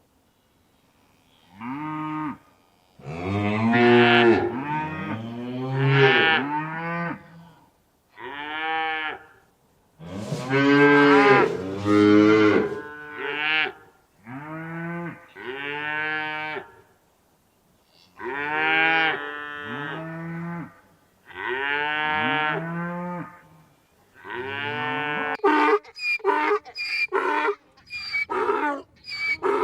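Cattle mooing: about a dozen drawn-out calls, each roughly a second long and rising then falling in pitch, some overlapping as from more than one cow. Near the end these give way to a rapid run of short, higher-pitched animal calls.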